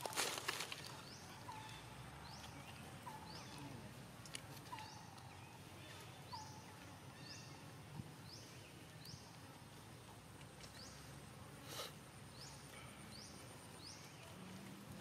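Outdoor ambience: a thin, high chirp falling in pitch repeats about twice a second, with four lower falling notes at a slower pace in the first half. A brief rustle at the start and a single sharp click near the end.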